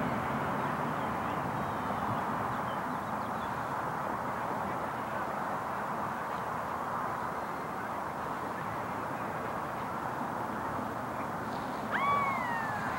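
Steady wind noise, with a brief call about twelve seconds in that rises and then falls in pitch.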